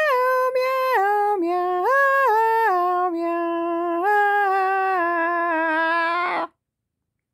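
A woman singing a wordless melody in a high voice, stepping up and down through held notes and holding the last one for about two seconds before breaking off abruptly near the end.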